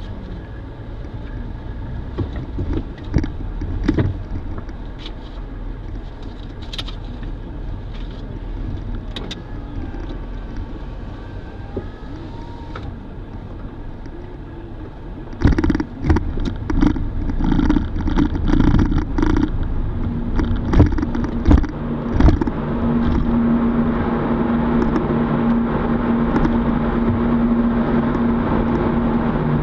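A car moving slowly, heard from inside the cabin; about fifteen seconds in, a run of clanks and thumps as its tyres cross the steel boarding ramp onto a car ferry. After that a steady low hum with a held tone, the car deck of the ferry, runs under the car's own noise.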